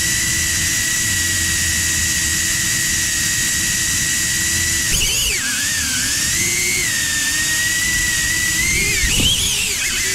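Cinewhoop FPV drone's motors and ducted propellers whining in flight. A steady high whine, then, about halfway through, the pitch starts rising and falling as the throttle changes during manoeuvres.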